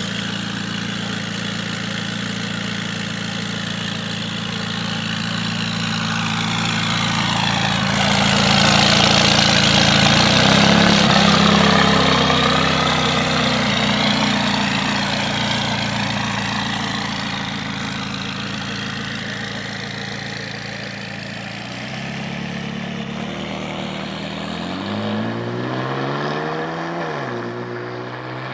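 McLaren 570S twin-turbo V8 running stationary at a steady idle, swelling louder for several seconds partway through. Near the end it revs once, the pitch rising and then falling back.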